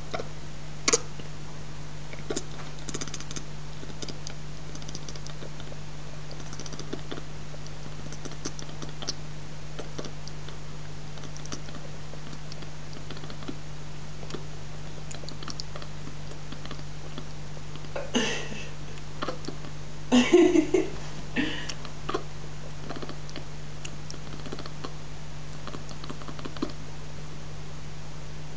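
A cat chattering at the window: short bursts of rapid clicking and ticking, a few scattered at first and the loudest cluster about two-thirds of the way through, over a steady low hum.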